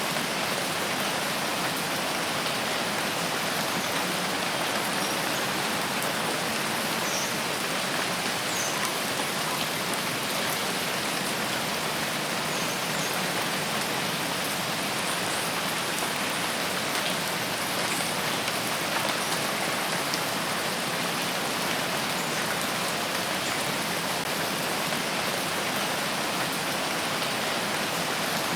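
Steady, even rainfall hissing on foliage in a forest, with a few faint individual drop ticks.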